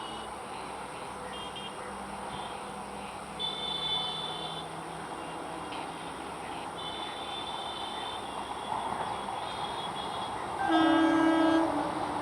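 Electric multiple unit (EMU) suburban train running with a steady rumble, then one horn blast about a second long near the end, the loudest sound.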